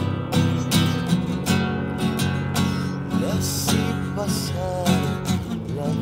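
Nylon-string classical guitar strummed in a steady rhythm of chords, a new strum every third to half second.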